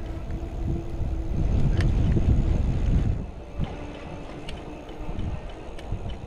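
Low wind rumble buffeting the microphone, loudest from about one and a half to three seconds in, over a faint steady hum and a few small clicks.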